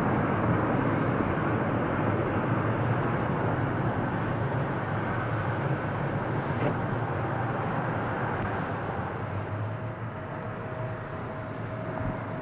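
Jet engines of a landing Boeing 777: a steady rushing rumble that slowly fades as the airliner touches down and rolls out.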